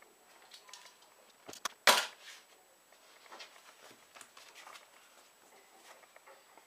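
Sheet of paper being handled and folded on a cutting mat: soft rustles and light clicks, with two sharp clicks and then a loud, short knock about two seconds in.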